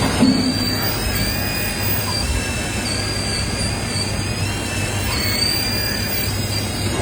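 Excavator running: a steady low engine drone under noise, with a high, thin whine that wavers up and down in pitch.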